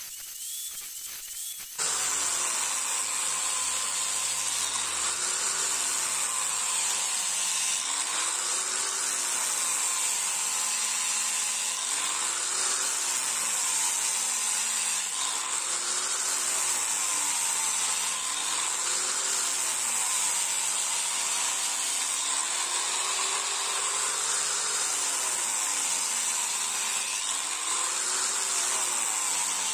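Electric angle grinder with a sanding disc grinding and smoothing a forged steel sickle blade, the finishing stage of the blade. It runs loud and steady after a quieter first two seconds, its motor tone rising and falling in regular swells about every two seconds as the disc works along the blade.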